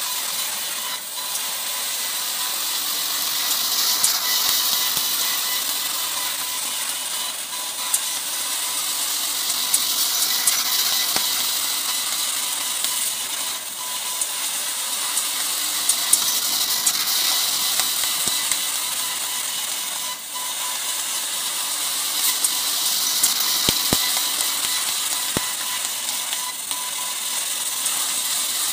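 Laser cutting machine flying-cutting 2 mm steel sheet at 10 m/min: a steady high hiss from the cut, with a thin steady whine and fine scattered ticks as the head cuts rows of small holes.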